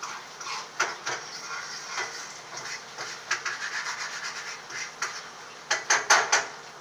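Kitchen utensils scraping and rubbing at a pot on the stove, with scattered light clicks and a few louder knocks shortly before the end.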